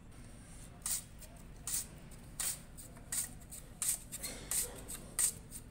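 A raw potato being pushed over the blade of a metal hand slicer, each stroke a short rasping slice, about seven strokes at a steady pace of a little over one a second.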